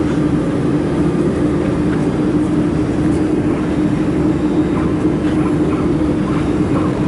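Dust collection fan of a laser welding machine running steadily with a constant hum, with a few faint ticks scattered through.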